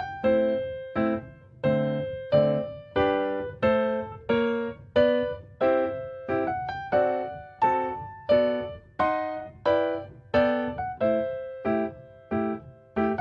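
Background piano music: a gentle melody of struck notes at a slow, even pace, each note dying away before the next.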